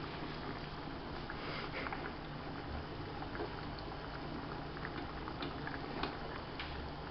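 Large pot of pasta water at a rolling boil, a steady bubbling hiss, with scattered small pops and clicks as tomato sauce is stirred in the pan beside it.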